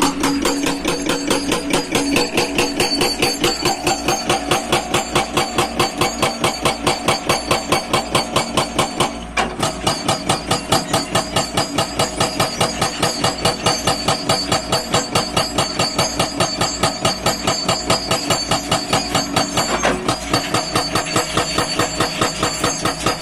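Hydraulic breaker on a Hyundai 210 excavator hammering steadily at about five blows a second, with the excavator's engine running under it.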